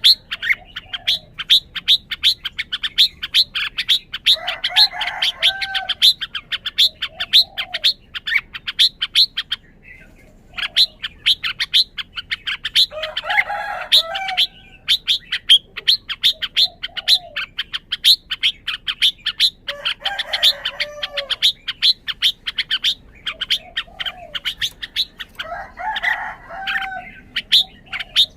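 Red-whiskered bulbul singing short warbled song phrases about every seven seconds. Under the song runs a fast, steady series of sharp, high chirps, about three or four a second, that drops out briefly twice.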